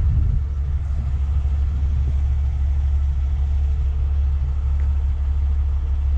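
Steady low rumble of a 50-ton Vulcan rotator wrecker's diesel engine, running to power the hydraulics while it holds a suspended load.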